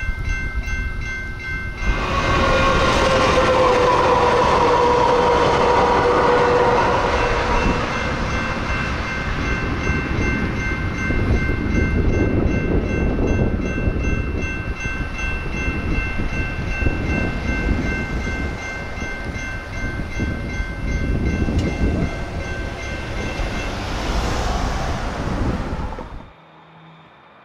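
Railroad crossing warning bells ringing steadily as a light rail train arrives with a blast of its horn, the horn's pitch sagging slightly, then rumbles past over the crossing. The bells stop near the end, and the sound then cuts off suddenly.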